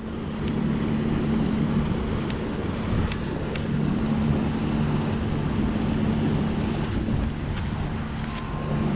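Steady drone of a boat engine during a tow, with the rush of moving water around the hull.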